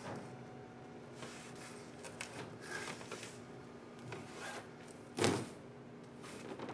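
Lumber being handled on a flatbed truck: a large thin plywood sheet and walnut boards sliding and scraping against each other in short strokes, with one louder knock about five seconds in.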